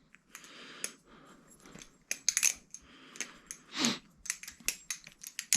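Barracuda balisong (butterfly knife) being flipped: a quick, irregular run of light metallic clicks and clinks as the handles swing around and knock against the blade and latch.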